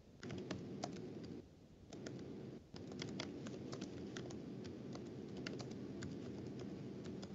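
Computer keyboard being typed on: irregular runs of key clicks with a short break about a second and a half in, heard through an online-meeting microphone over steady low background noise. A question is being typed out.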